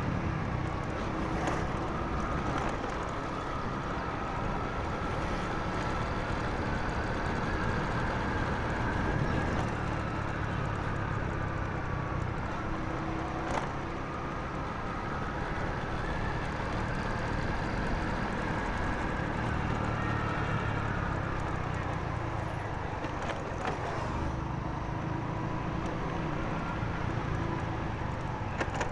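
Honda motorcycle engine running steadily on the move, with road and wind noise, its note rising and falling gently with the throttle. A few sharp clicks are heard, one about halfway through.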